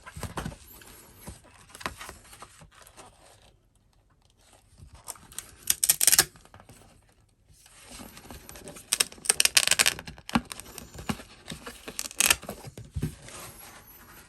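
Paper packaging being torn and crinkled by hand, in several short loud bursts with quieter rustling and handling between.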